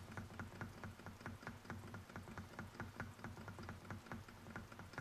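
Model Ringbom Stirling hot-air engine with a revolving cylinder running: a fast, even ticking of about six clicks a second over a low pulsing hum.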